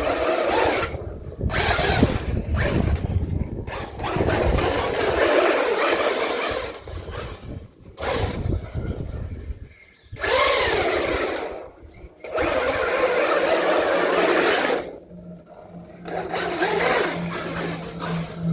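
Traxxas Hoss RC truck's brushless electric motor whining in repeated throttle bursts, pitch rising and falling, with short pauses between bursts; it is really loud. A steady low hum comes in near the end.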